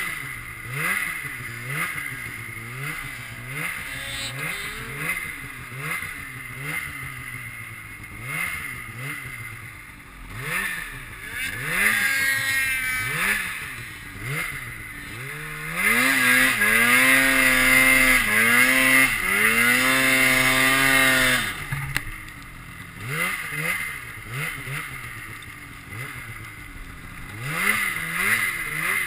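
800 cc two-stroke mountain snowmobile engine worked with short throttle blips about once a second, climbing in pitch a few times, then held at high revs for about five seconds past the middle before dropping back to short blips.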